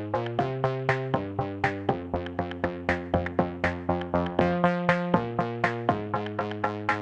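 Electronic background music: synthesizer chords over a steady drum-machine beat of about four beats a second.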